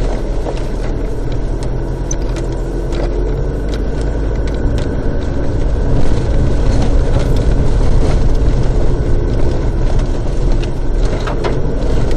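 Inside the cabin of a four-wheel-drive vehicle driving along a rough dirt track: a steady low engine and tyre rumble with occasional short knocks and rattles. It grows a little louder about halfway through.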